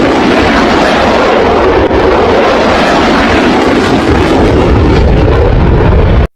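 Fighter jet engine noise, a loud, steady rush with no distinct tone, cutting off abruptly near the end.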